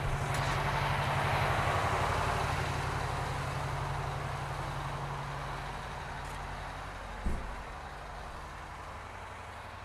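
Oshkosh M1120A2 HEMTT 8x8 truck's diesel engine idling with a steady low hum. It swells about a second in and then slowly fades, with a single thump about seven seconds in.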